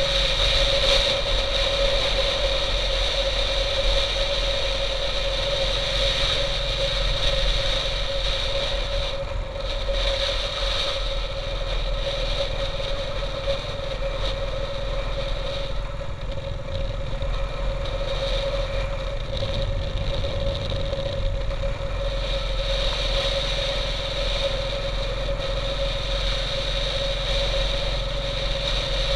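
Motorcycle engine running at a steady cruise, heard from the rider's seat.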